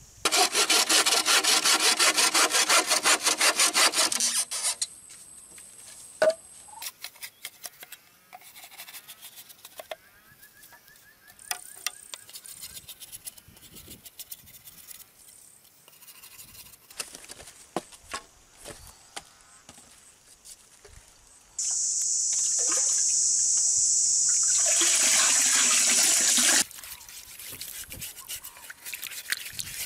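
A knife tapping and splitting a green bamboo tube, heard as scattered sharp taps, clicks and cracks. Two loud, steady rasping buzzes are the loudest sounds: one in the first four seconds, and a higher one that starts about two-thirds of the way through and cuts off suddenly about five seconds later.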